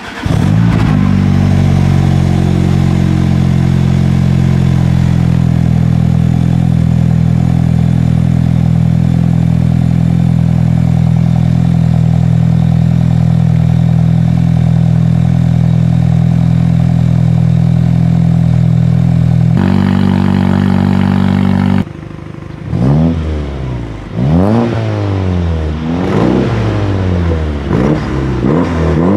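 Audi A4 allroad B9's 2.0 turbo four (EA888 Gen 3), straight-piped through a catless downpipe and a Vibrant Street Power muffler. It starts up in a parking garage, its revs falling for a few seconds before it settles to a loud, steady idle. From about 22 seconds in, a Jeep Wrangler JL's 2.0 turbo Hurricane four, with a catless downpipe and a Vibrant resonator, is revved about five times, each rev rising and falling.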